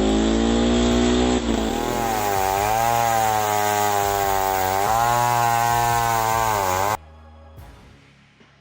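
Chainsaw engine running hard. Its pitch drops about a second and a half in, then rises and falls as it works. It cuts off abruptly near the end.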